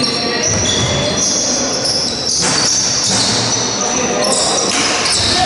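Basketball game on a wooden sports-hall floor: trainers squeak sharply and repeatedly on the court as players move, with the thud of the ball bouncing.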